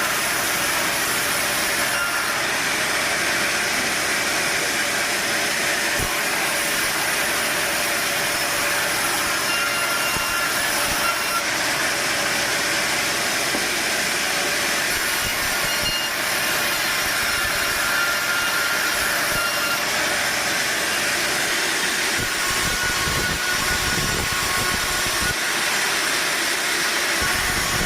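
Sawmill machinery running with a steady, loud hiss, with some uneven low rumbling near the end.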